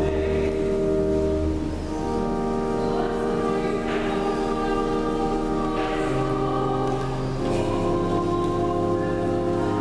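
Church organ and choir singing slow, sustained chords over a deep held bass note, with the chords changing every second or two.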